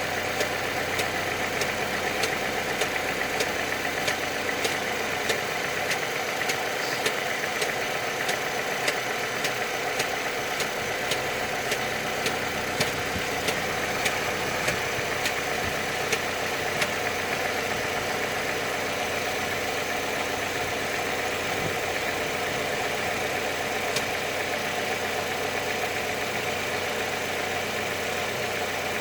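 Opel Astra G 2.2 engine idling steadily, with sharp ticks repeating about twice a second that thin out and fade after about the middle.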